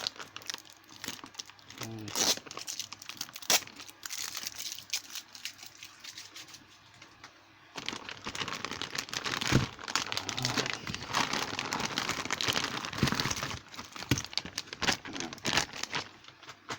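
Packing wrap being crinkled, crumpled and torn off by hand, a dense run of crackles and small clicks that eases off for a few seconds in the middle, then picks up again more loudly.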